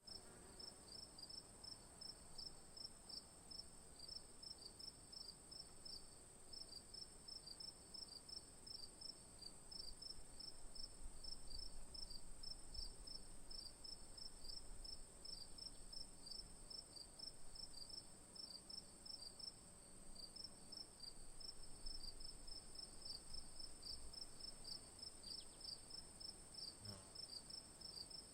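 Crickets chirping: a steady high-pitched trill runs on without a break, with a second layer of short chirps repeating about four times a second just below it. Faint overall.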